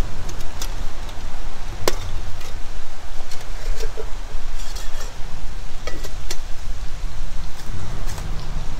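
Titanium camp pot and mug clinking and tapping as they are handled and set down on a rock, a scatter of short metallic clicks with a sharper one about two seconds in, over a steady low rumble.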